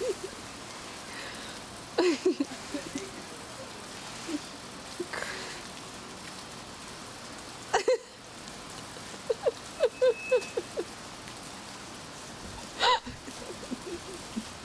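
Snow swishing and crunching as a person lying in it sweeps his arms and legs to make a snow angel, with a few short bursts of voices breaking in.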